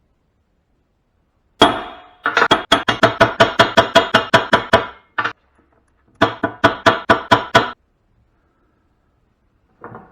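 Rapid metal-on-metal hammer strikes, about five or six a second, each with a ringing clink, in two runs after a single opening blow.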